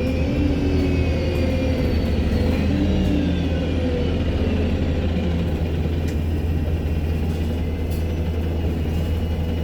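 ADL Enviro200 MMC bus's diesel engine running under way: a steady low rumble with a high turbocharger whine over it. The whine glides slowly down in pitch and rises briefly about three seconds in.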